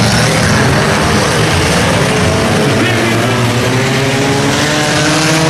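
Engines of several stock cars running hard on a dirt track, revving as they race around the oval.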